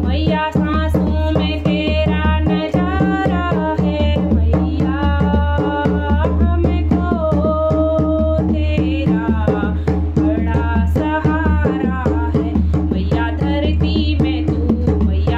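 A woman singing a Hindi devotional bhajan to the Mother Goddess, in long sung phrases with held notes, over a quick, steady drum beat.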